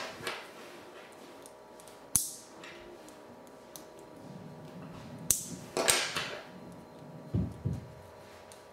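VEX IQ plastic pieces being snapped together by hand: a few sharp clicks about two seconds in and again around five to six seconds, with a duller knock near the end.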